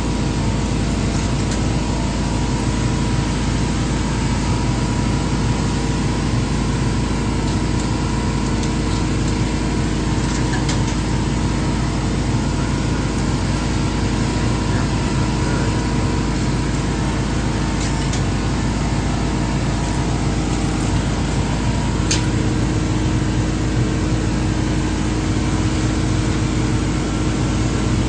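Steady mechanical drone and hum that holds an even level throughout, with a few faint clicks along the way.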